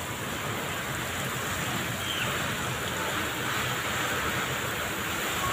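Heavy rain pouring down steadily onto wet ground and standing water, a continuous even hiss.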